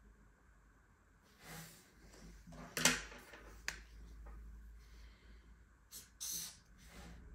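Handling sounds on a sheet of paper: a few rustles and two sharp clicks as a pencil is put down and a felt-tip marker taken up, then the marker scratching across the paper in two quick strokes near the end, drawing a check mark.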